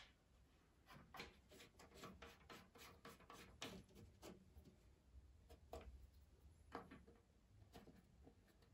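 Faint scattered clicks and light rubbing as small caps are screwed by hand onto the valve ports of a radiant floor-heating manifold, against near silence.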